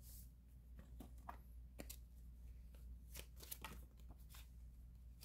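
Faint, scattered clicks and rustles of tarot cards being handled, shuffled and drawn from the deck.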